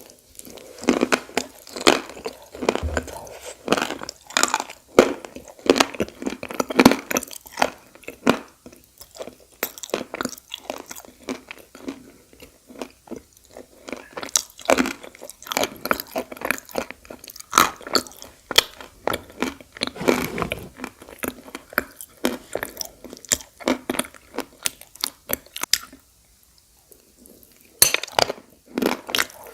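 Close-up crunching and chewing of pieces of edible clay in the mouth, as a dense run of irregular crisp crunches. The crunching stops briefly near the end, then starts again.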